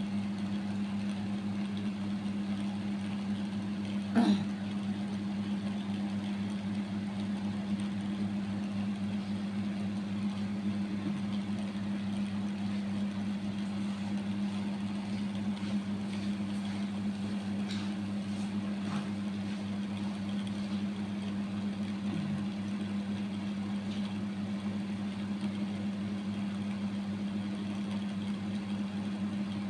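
A steady low hum at one pitch, with one brief, louder sound falling in pitch about four seconds in.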